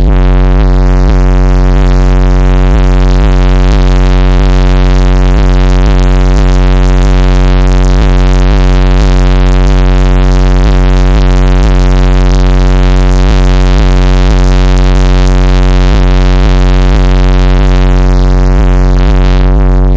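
Car-audio subwoofer system playing a sustained, very low bass tone at extreme output for the 'hair trick', steady and heavily distorted, with a buzzing fringe of overtones and a faint regular pulsing.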